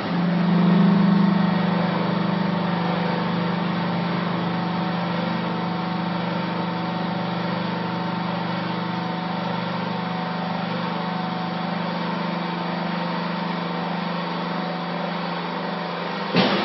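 Vertical hydraulic baler's electric motor and hydraulic pump running steadily under load, a loud even hum, as the press plate rises in the chamber. A sharp clunk sounds near the end.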